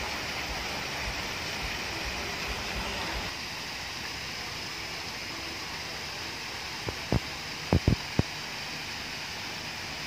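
Steady rushing of a waterfall pouring down a rock face into a pond. A few short low thumps come close together about seven to eight seconds in.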